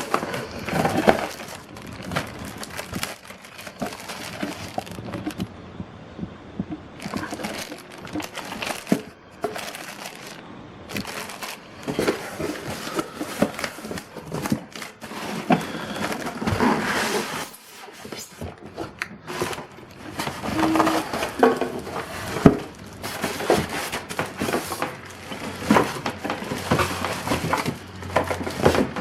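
Packaging being handled while a humidifier is unboxed: rustling and crinkling with many sharp clicks and knocks, as cardboard, plastic wrap and styrofoam packing are pulled apart.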